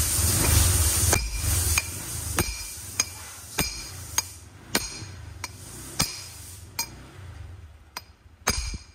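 Hammer strikes tapping a new steering-head bearing part into place on a Honda PCX 160: about a dozen sharp taps, roughly two a second, each with a short metallic ring. A low steady hum stops about a second in.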